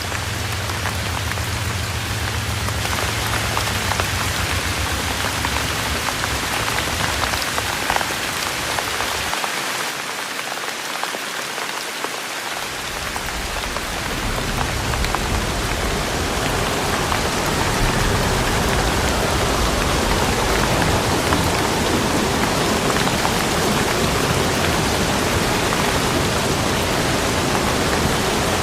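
Steady rain falling, with a low rumble underneath that drops out for about three seconds around ten seconds in.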